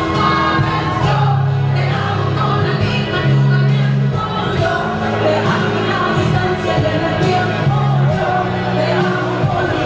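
A song playing loud: a solo voice sings over backing music with held bass notes that change about once a second.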